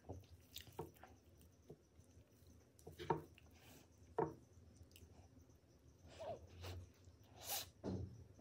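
A fork cutting and scooping soft cream sponge cake, with a few sharp clicks about three and four seconds in, then soft wet squishing and chewing of a mouthful of creamy cake near the end.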